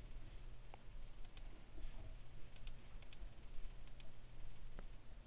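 Faint computer mouse clicks in quick pairs, about four times, over a low steady hum.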